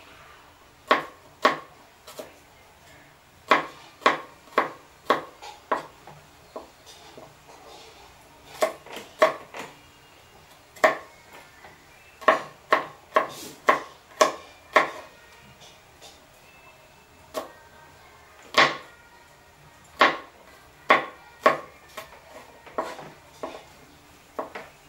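Kitchen knife chopping garlic cloves on a plastic cutting board: sharp, irregular knocks of the blade on the board, coming in short runs with brief pauses.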